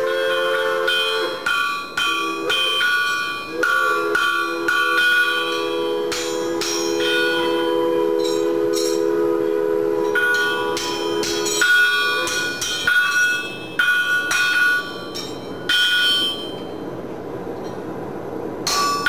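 A blacksmith's hammer striking a horseshoe on a steel anvil, in irregular runs of blows. Each blow rings out bell-like from the anvil as the shoe is shaped to fit a horse's hoof.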